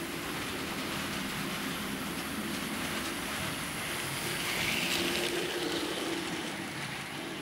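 H0 scale model steam locomotive and freight cars running on the track, a steady rolling rumble of wheels and motor that gets a little louder as the locomotive passes close about four and a half seconds in.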